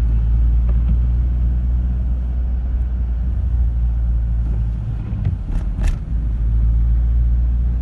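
Steady low rumble of a car driving on a highway, heard from inside the cabin: engine and tyre noise. A brief sharp knock sounds about six seconds in.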